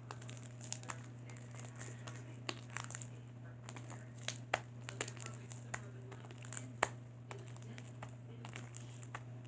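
Hands kneading sticky, under-activated glue slime: scattered sharp sticky pops and clicks as it pulls off the fingers, the loudest about seven seconds in. A steady low hum runs underneath.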